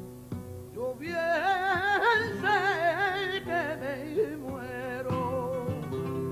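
Male flamenco singer singing a long, ornamented line that wavers up and down in pitch, coming in about a second in and dying away near the end, over an acoustic flamenco guitar.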